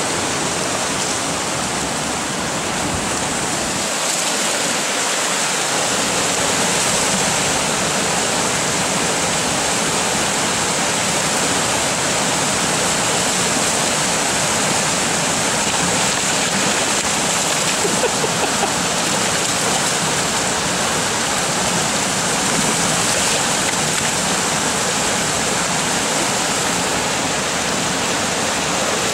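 Creek water pouring over a low concrete weir and rushing through the foaming rapids below: a steady, even rush of whitewater.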